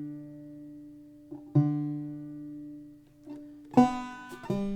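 Banjo in open G tuning: a couple of strings plucked and left to ring and fade, plucked again about a second and a half in, then a fuller strum across the strings and another note near the end.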